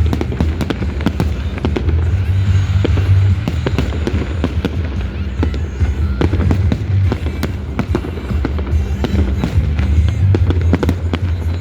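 Display fireworks going off in rapid, irregular succession, a dense run of bangs and crackles, with music playing underneath.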